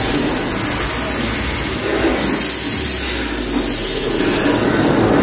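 Samsung S95B TV's built-in speakers playing a loud, dense rushing noise with a low rumble underneath and no clear tune, during a speaker sound test.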